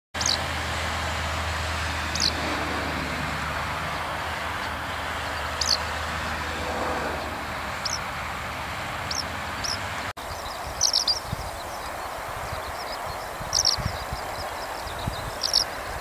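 Eurasian skylark giving its short, high ground calls, one every second or two, then quick runs of several calls with soft twittering in the second half. A steady low background rumble runs underneath.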